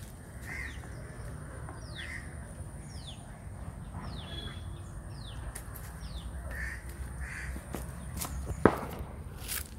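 Crows cawing again and again, with other short, high, falling bird calls. A single sharp knock sounds near the end.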